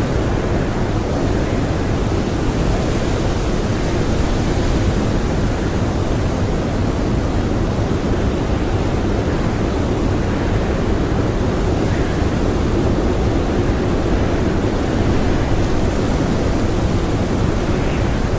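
Blizzard wind blowing hard and steadily, a continuous rushing noise heaviest in the low end, with no gusts standing out.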